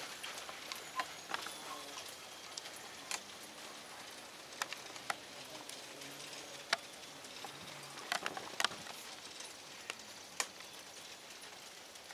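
Ponies pulling driving carts over the arena footing: faint, irregular clicks and ticks of hooves and cart wheels against a quiet outdoor background.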